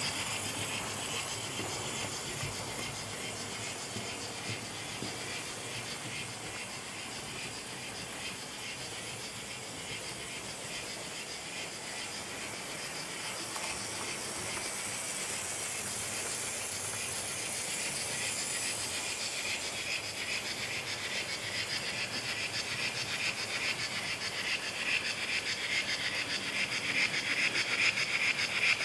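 HO-scale Trix DB class 10 model steam locomotive, refitted with a Lemo-Solar motor in place of its screaming original, running with its coaches: a steady whirr of motor and gearing mixed with a rapid clicking rattle of wheels on the track. It grows louder towards the end as the train comes close.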